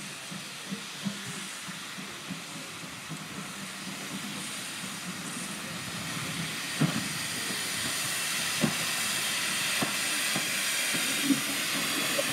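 1948 Robert Stephenson & Hawthorns saddle tank steam locomotive moving slowly closer, steam hissing from its open cylinder drain cocks, the hiss growing steadily louder. From about halfway through, a handful of sharp clanks a second or so apart come from its wheels running over the points and rail joints.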